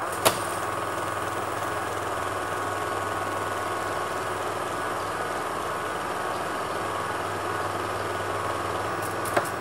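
A small motor running with a steady hum, starting with a click about a quarter second in, with another click near the end.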